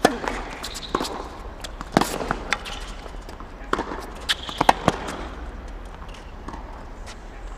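Tennis balls struck with rackets and bouncing on a hard court during a practice rally: a string of sharp pops, the loudest a serve at the very start, then further hits and bounces about every second, echoing briefly in the empty stadium.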